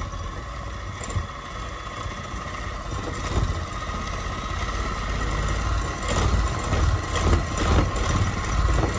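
Small electric hand mixer running steadily with a motor whine, its beaters whipping egg whites and sugar into a glossy meringue. It grows louder from about six seconds in.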